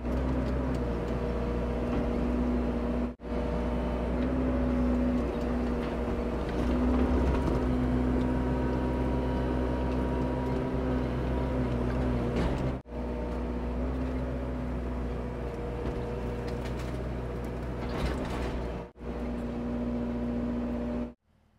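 An engine running at a steady speed, with a low hum and a wavering tone over it, broken by short gaps about 3, 13 and 19 seconds in.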